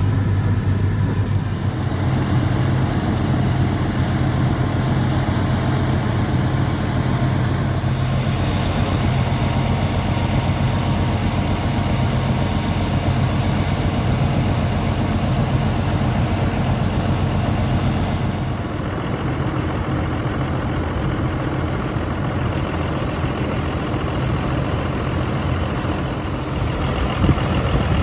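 Heavy farm machinery engines running steadily under load. The engine note and the surrounding noise change abruptly three or four times, with one shot replacing another.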